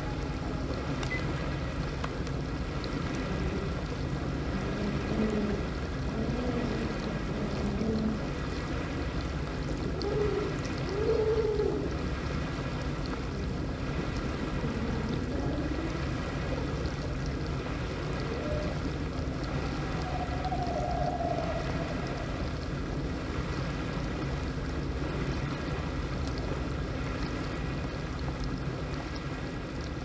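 Dishwasher running through its wash cycle: a steady motor hum under rushing, sloshing water, with low moaning tones that rise and fall now and then.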